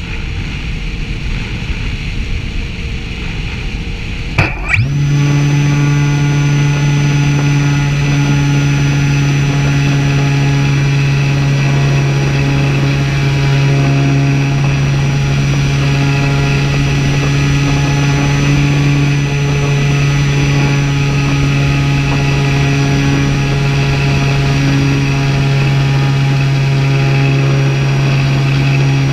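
Wind rushing past a model airplane gliding with its motor off, then about four and a half seconds in the motor spins up quickly and the propeller runs on at a steady pitch, with a thin high whine on top.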